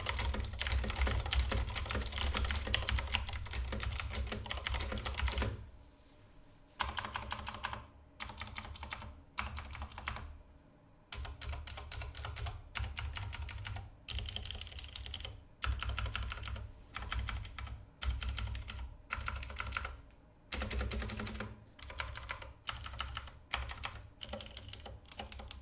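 Typing on an Epomaker GK68X mechanical keyboard fitted with clicky Cherry MX Blue switches, a little on the loud side. A fast, continuous run of keystrokes lasts about five seconds, then the typing comes in short bursts with brief pauses between them.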